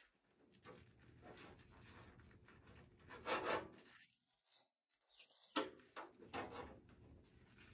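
Metal bracket and panel parts inside a Cooler Master HAF 700 EVO PC case scraping and rubbing under a gloved hand as a part is lined back up into its slot, with a louder scrape about three seconds in and a sharp knock about five and a half seconds in.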